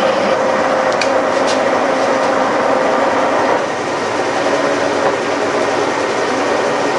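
Vintage milling machine running under power while a boring bar cuts the bore of a lathe drive mount: a steady machine drone with a held hum, a little quieter from about halfway, and two light ticks about a second in.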